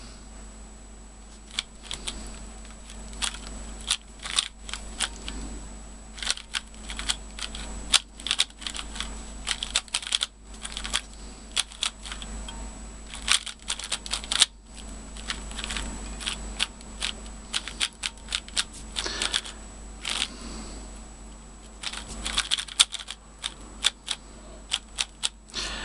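A QiYi Valk 3 3x3 speedcube being solved: its plastic layers turning with rapid clicks and clacks, in quick flurries broken by short pauses.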